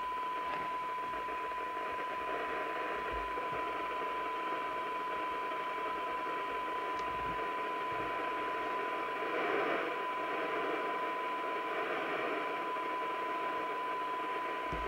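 A steady single-pitch test tone over an even bed of hiss, heard from the Maxcom 6E FM CB receiver. It is the signal generator's tone modulation demodulated by the radio while its receive coils are tuned for sensitivity. The hiss swells slightly about two-thirds of the way through.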